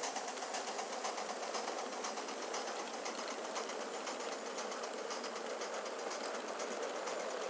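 Gauge 1 live-steam model of a Midland Railway Tilbury tank locomotive running under steam, its exhaust beating in a rapid, even chuff, with the clatter of the coaches on the track.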